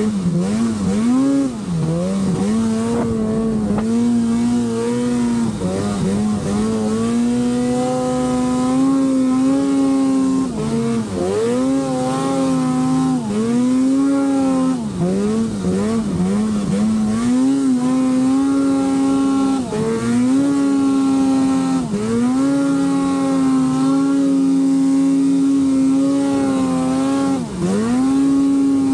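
Arctic Cat Alpha One snowmobile's two-stroke engine running hard through deep powder. Its pitch rises and falls again and again as the throttle is let off and opened, with brief sharp drops about every few seconds.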